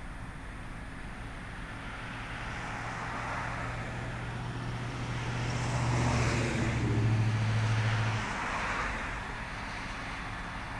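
Single-engine F-16C fighter jet taxiing, its turbofan running at low power with a jet hiss and a low drone. The sound swells to its loudest about six to eight seconds in, when the low drone cuts off suddenly, and then fades back down.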